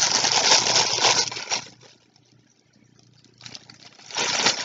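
Plastic poly mailer bag crinkling and rustling as it is handled and pulled open. It stops for about a second and a half in the middle, then starts again.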